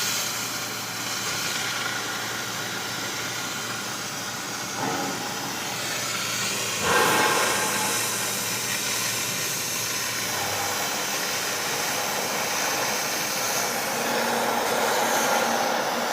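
CNC machine running with a steady hiss and hum, and a brief louder surge of hiss about seven seconds in.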